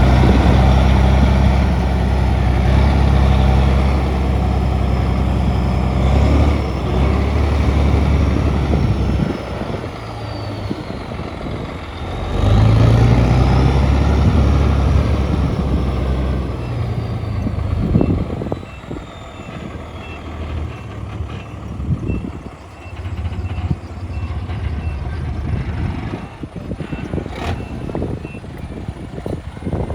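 Heavy diesel engines of earthmoving machines (bulldozer and dump truck) working under load. The engine note eases off, then surges again about twelve seconds in. A faint repeating beep runs through the second half, with a few knocks.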